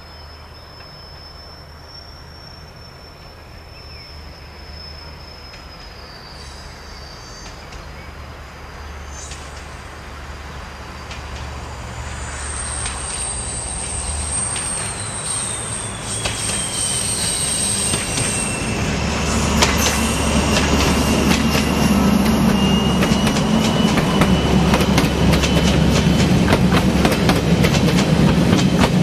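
SNCF BB 67000-family diesel locomotive approaching round a curve, its engine growing steadily louder. High-pitched wheel flange squeal from the curve begins about halfway through. Near the end the coaches pass close, their wheels clicking over the rail joints. A faint steady high insect chirp is heard at the start.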